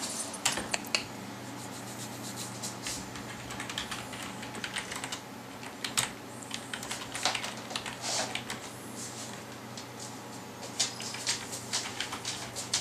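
Typing on a computer keyboard: irregular key clicks in quick runs and pauses, over a low steady hum.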